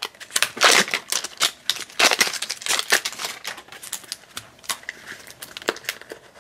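Toy packaging handled by hand: irregular crinkling and rustling with sharp plastic clicks and snaps, as a blind-pack is unwrapped and its plastic pet-carrier case is opened.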